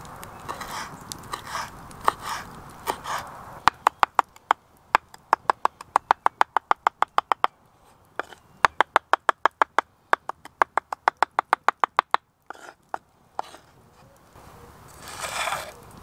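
Knife chopping fresh herbs on a wooden chopping board: quick, even taps of the blade on the wood, about five a second, in two runs with a short pause between. A few softer strokes come before them, and a brief rustle comes near the end.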